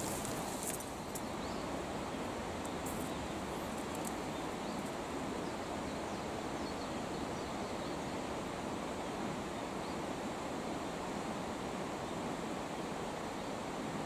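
Steady rush of a fast river current flowing over stones, an even wash of water noise. A few light clicks and knocks in the first second.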